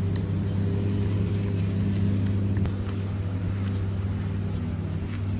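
Engine running steadily with a low, even hum, which shifts slightly about two and a half seconds in.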